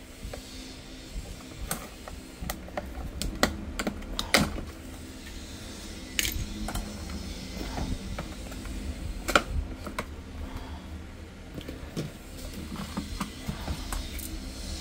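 Plastic housing of a Tefal steam iron being handled and pried off its soleplate: irregular clicks, knocks and rattles of hard plastic, with a steady low hum underneath.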